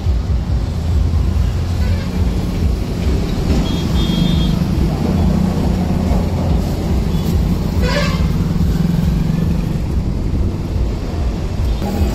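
An engine runs steadily with a low rumble. A brief high beep comes about four seconds in, and a short rising sound about eight seconds in.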